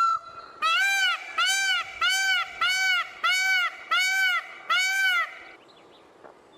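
Peacock calling: the end of a long call at the start, then a run of seven short calls, each rising and falling in pitch, repeated at a steady pace of a bit over one a second, after which only faint background remains.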